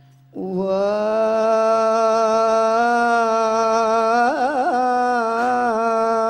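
A male dikir barat lead singer (tok juara) sings one long held note alone through a microphone. It starts about half a second in and wavers in a brief melismatic trill near the middle.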